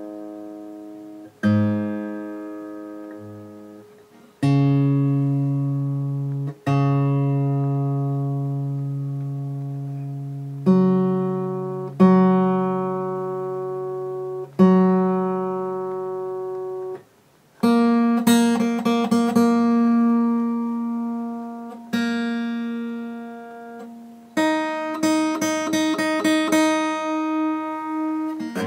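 Acoustic guitar in standard tuning: chords struck one at a time and left to ring out, a new one every two to three seconds, then a quicker run of strummed and picked chords over the last third.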